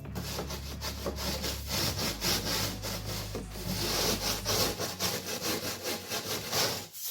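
Gypsum board being cut with a hand saw, in quick, even back-and-forth strokes.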